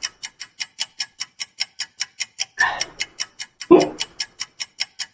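Fast, even clock ticking, about five ticks a second, cutting off suddenly at the end. Twice, near the middle, a short voice sound from a person cuts in over the ticking.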